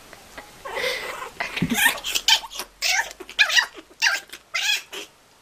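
Kitten mewing in a quick series of short, high calls, about six in a row, while play-fighting, after a short noisy scuffle about a second in.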